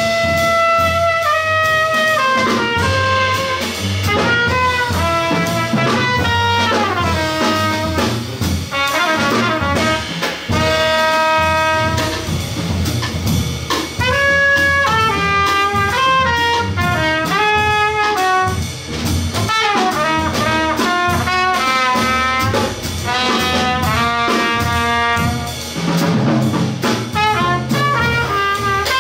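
Jazz trio of trumpet, upright bass and drum kit playing: the trumpet carries a line of held notes, quick runs and slides over the bass and the drummer's cymbals.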